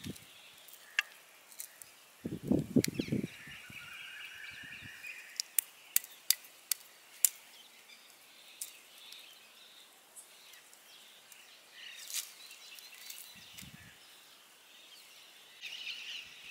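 Scattered sharp crackles and pops from raw cashew nuts roasting in their shells over a fire. Birds chirp in the background, and there is a brief low rumble about two seconds in.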